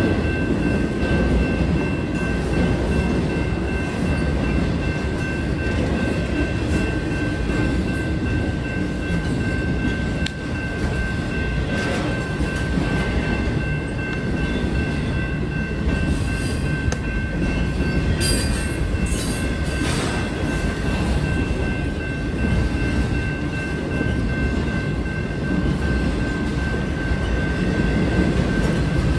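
Double-stack intermodal freight cars rolling steadily past: a continuous rumble and clatter of steel wheels on rail, with a thin steady high tone above it and a few sharper clanks around the middle.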